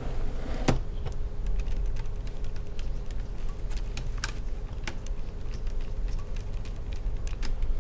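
Screwdriver working small screws out of a laptop LCD panel's side mounting bracket: a run of small, irregular clicks and ticks of metal and plastic.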